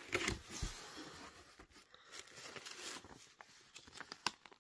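Paper and packing material rustling as a shipping box is opened and its instruction sheet is handled, with a few sharp clicks about four seconds in.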